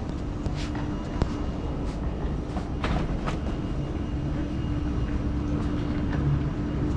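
Steady low rumble of a moving vehicle with a constant hum, and a few brief clicks and rattles about a second in and around three seconds.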